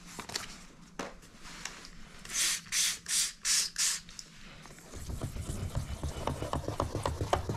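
Four quick squirts from a spray bottle of soapy water, about half a second apart, then from about five seconds in, rapid back-and-forth rubbing of wet 2500-grit waterproof sandpaper on a plastic headlight lens: the final fine-grit wet-sanding stage of restoring a hazy headlight.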